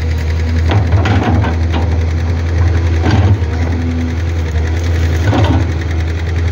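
Matador ME220 excavator's diesel engine running steadily while it digs. Several knocks and scrapes come and go as the bucket and arm work the soil.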